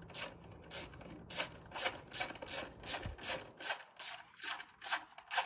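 Hand ratchet wrench worked back and forth to tighten bolts, its pawl rasping on each return stroke about three times a second.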